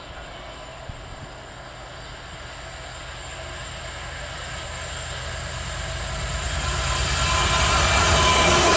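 Class 66 diesel locomotive hauling a container freight train as it approaches. The engine and wheel noise grows steadily louder until the train is close near the end.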